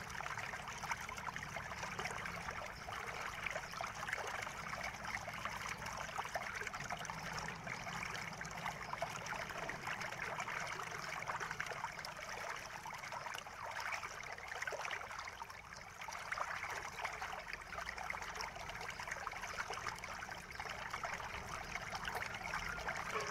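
Fast-forwarded sound of a screwdriver backing out the bottom-case screws of an HP 14 laptop, with hands handling the plastic case: a dense, steady patter of small clicks and scrapes.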